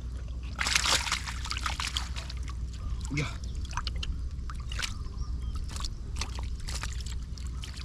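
Shallow water sloshing and splashing in irregular bursts, the loudest about a second in, as hands work through a flooded field.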